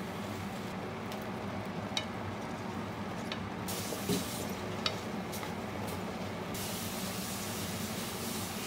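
Okara and vegetables simmering in a skillet with a steady low hiss, stirred with wooden chopsticks that tap lightly against the pan a few times, with a soft thump a little after four seconds in.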